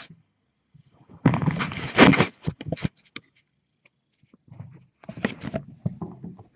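Kittens scuffling and play-fighting against the camera, their fur brushing and rubbing on the microphone: a loud rustling burst about a second in, scattered taps, then more scuffling near the end.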